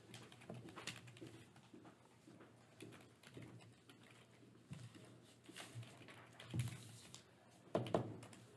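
Computer keyboard being typed on: faint, irregular clicking of keys. A single louder thump comes near the end.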